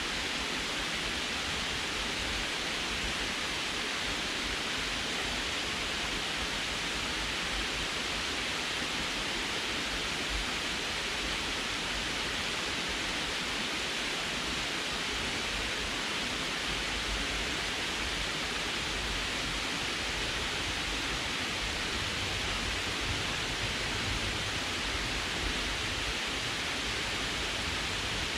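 Water pouring in a thin sheet over a low concrete dam into the pool below: a steady, unchanging rush of falling water.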